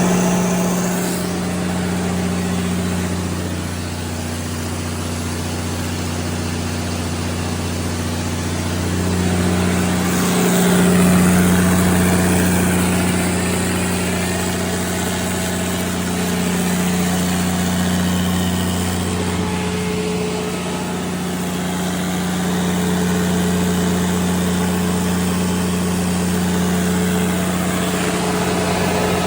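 Cummins NTA855-G5 inline six-cylinder turbocharged diesel running a 400 kW generator at a steady governed speed, a constant low drone that holds its pitch throughout.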